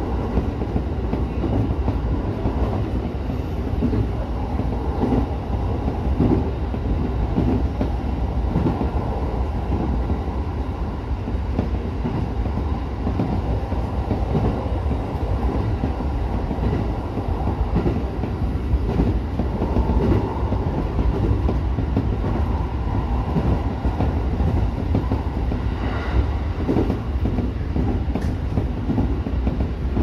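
JR East E231-series electric commuter train running at speed, heard from inside the driver's cab: a steady rumble of wheels on rail with a few faint clicks.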